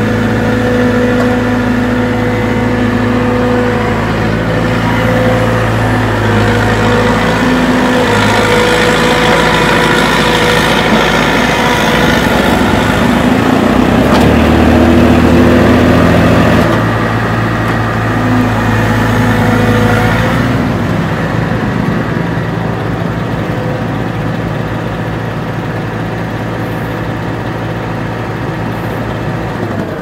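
Excavator diesel engine running, its pitch stepping up and down as the engine speed changes under hydraulic load. It is loudest about a third to halfway through, with a deeper tone for a couple of seconds in the middle.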